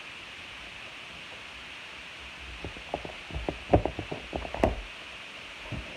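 A quick run of irregular knocks and clicks from slime being stirred in a bowl, starting about two and a half seconds in and dying away near the end, over a steady background hiss.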